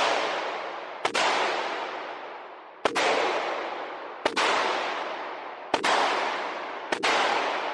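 Five single gunshots, one every second and a half or so, each followed by a long fading echo.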